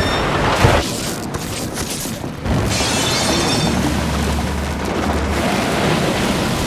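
Film sound of a yacht in a violent sea storm: heavy booms of waves striking the boat over rushing water and wind, with a sharp hit about half a second in and a deep rumble later, under dramatic music.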